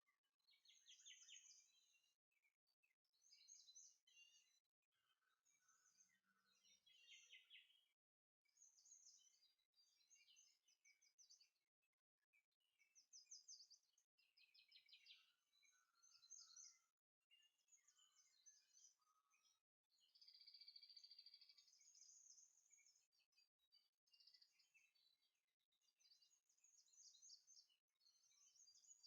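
Faint birdsong: small birds chirping and trilling in short phrases of a second or two, with brief pauses between them.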